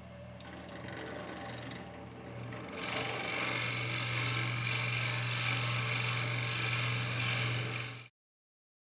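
Wood lathe running with a big drill bit boring into the spinning maple blank to hollow it out: a steady motor hum under a cutting noise that grows much louder about three seconds in. The sound cuts off abruptly near the end.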